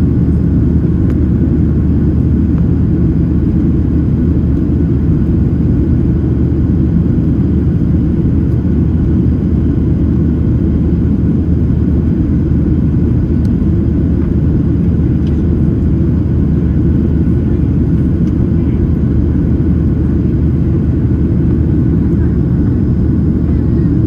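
Steady, low-pitched noise of a Boeing 737-800's jet engines and airflow heard inside the cabin, holding an even level throughout.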